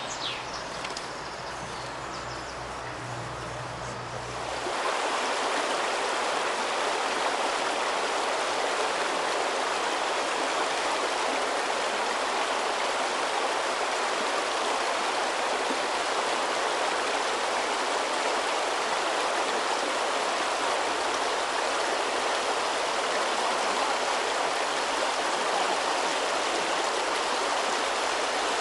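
River water rushing over a shallow, stony riffle in a steady rush. It grows louder about five seconds in.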